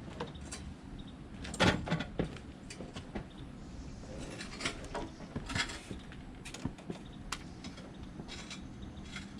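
Scattered clicks, knocks and rustles of handling and movement on and around a parked motorcycle, with the loudest clunks coming together about two seconds in.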